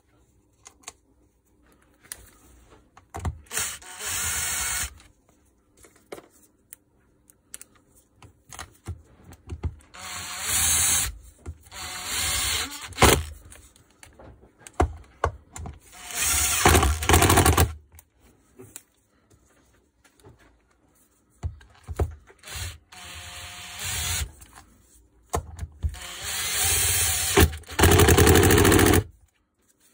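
Cordless Makita driver running in repeated bursts of one to three seconds, about six times, with short pauses between, as it drives bolts into the shredder's gearbox housing.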